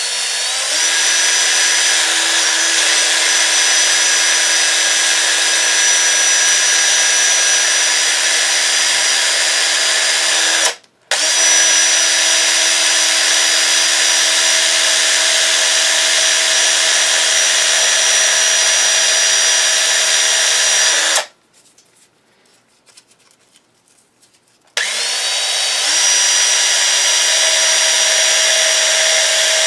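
Cordless drill running steadily, spinning a barrel trimmer's shaft while 150-grit sandpaper is held against it to clean the crud off the shaft. The motor stops briefly about a third of the way in and again for a few seconds about two-thirds through, winding back up after each stop.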